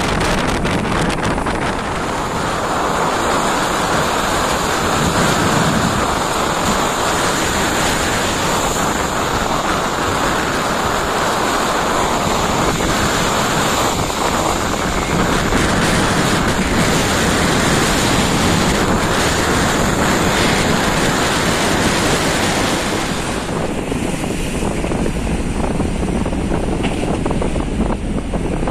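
Rough sea surf rushing and breaking, with strong wind buffeting the microphone; the rush eases a little near the end.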